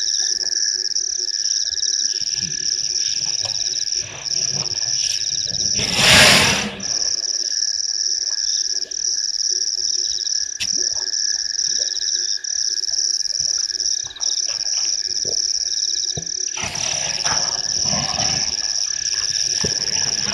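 A steady night chorus of frogs and insects, with one shrill high band and a lower continuous trill. A loud rustling noise breaks in about six seconds in and again over the last few seconds.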